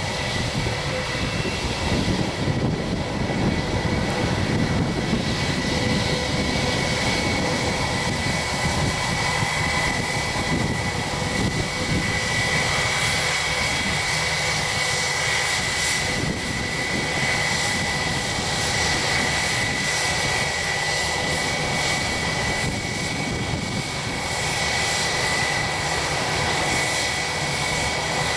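Airbus A319 airliner's twin jet engines running at idle while it turns and lines up on the runway: a steady roar with a constant high whine, not spooling up.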